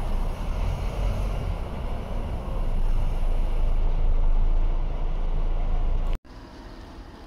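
Engine and road noise heard from inside a moving bus: a heavy, steady low rumble that grows louder about three seconds in. It cuts off abruptly about six seconds in, leaving a much quieter steady background.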